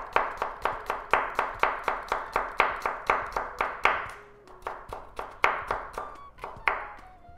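Kitchen knife mincing garlic on a wooden cutting board: quick, even chopping strikes about four a second, easing briefly after about four seconds and then picking up again, less evenly.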